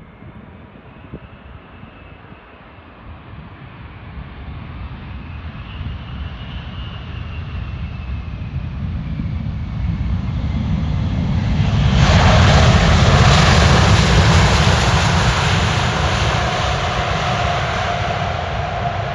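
Emirates Airbus A380's four GP7200 jet engines, a steady jet rumble that grows louder, peaks about two-thirds of the way through with a sudden rise in hiss, then eases off, with a steady whine in the last few seconds.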